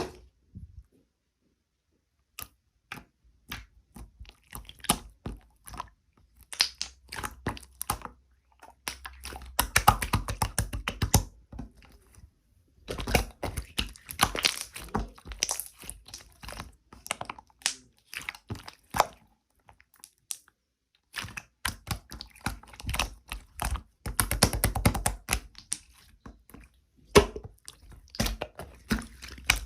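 Close-up crackling, clicking and crunching of something being handled, in bursts of rapid clicks with short pauses between them.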